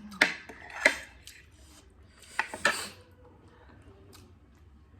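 Eating utensils clinking and scraping against a plate or bowl of instant noodles: two sharp clinks in the first second, then a louder scrape and clatter about two and a half seconds in.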